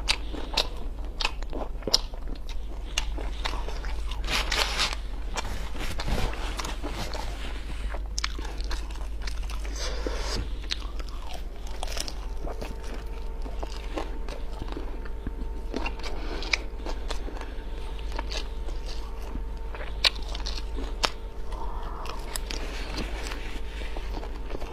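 Close-up eating sounds of luosifen (river-snail rice noodles): repeated biting, crunching and chewing with sharp clicks throughout. A faint steady hum comes in about halfway.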